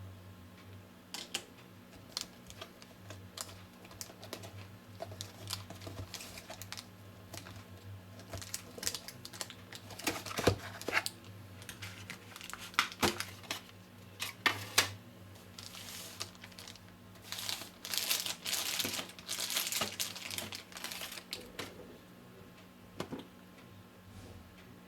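Phone packaging being handled while unboxing: scattered sharp clicks and taps, then several seconds of plastic wrapping crinkling and rustling about two-thirds of the way through, over a faint steady low hum.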